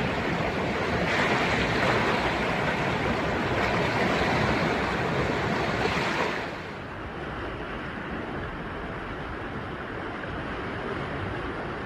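Rushing floodwater of a swollen river, a steady, dense rush with no distinct events. About six seconds in it drops to a quieter, duller rush.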